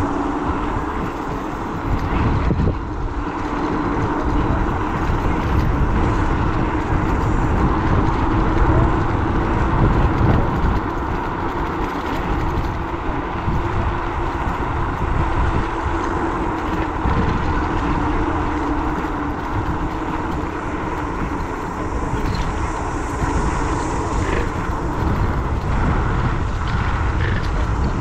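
A moving vehicle: steady low rumble of road and wind noise with a faint steady hum over it.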